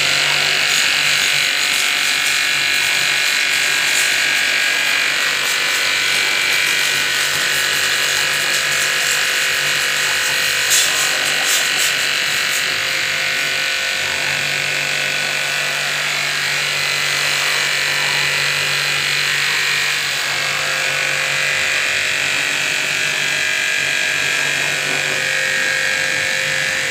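Electric pressure washer running steadily: a motor-and-pump hum under the continuous hiss of the water jet spraying over a motorcycle.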